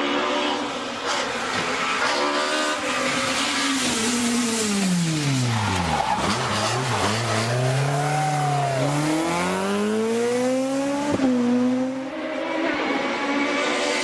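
BMW 318i Compact rally car's engine coming down hard through the revs into a hairpin, lowest about six seconds in, then revving up hard as it accelerates out. There is one quick gear change about eleven seconds in, after which it climbs again.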